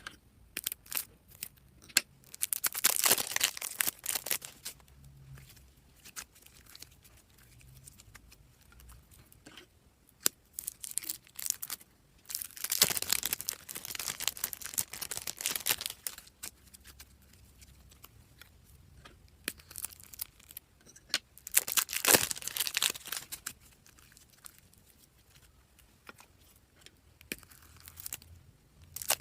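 Slime being mixed and squished by hand, crackling and popping in three main bouts, with scattered small clicks between them.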